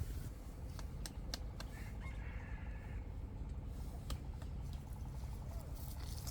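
A bird call lasting about a second, about two seconds in, over a low steady rumble and scattered clicks.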